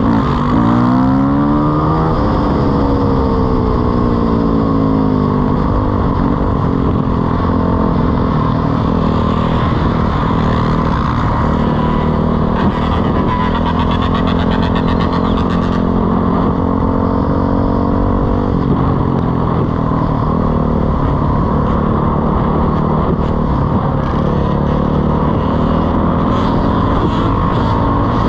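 Dirt bike engine heard from the riding bike itself, pulling through the gears: the revs climb and drop with each shift near the start, settle into a steady cruise, ease off about two-thirds of the way in, and climb again at the end.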